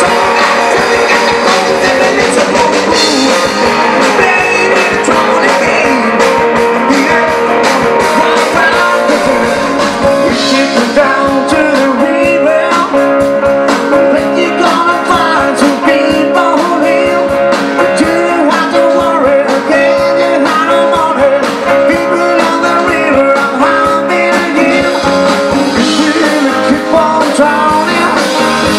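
Live rock band playing through the stage PA: electric guitars with a male singer, the song running on without a break.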